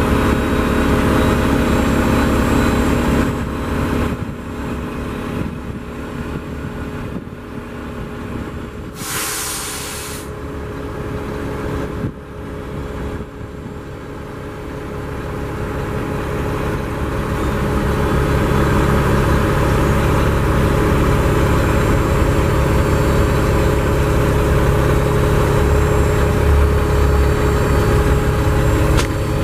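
Mack MP7 diesel engine idling steadily, heard from inside the truck's cab. It is quieter for a stretch in the middle, and there is a short hiss about nine seconds in.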